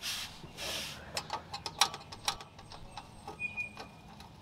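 Steel wrench working the nut on the downpipe exhaust hanger bracket: a run of faint metallic clicks and clinks, about four a second, after two short rustling noises at the start.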